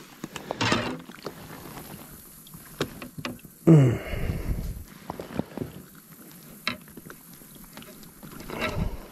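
Scattered knocks and handling noise on a plastic kayak as a freshly caught largemouth bass is lifted aboard and held. About four seconds in comes a short, loud sound that falls in pitch.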